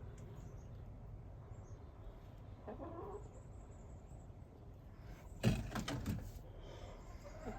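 Hens in a nest box making a few low clucks: a soft one about three seconds in, and a louder cluster of short clucks and rustling strokes around six seconds.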